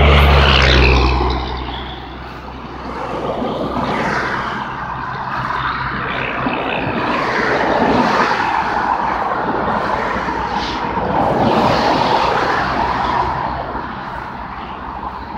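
Passing road traffic mixed with a diesel-hauled coal train rolling by on the adjacent tracks. A heavy engine hums loudly close by for about the first second and a half. After that comes a steady noisy rumble that swells and eases.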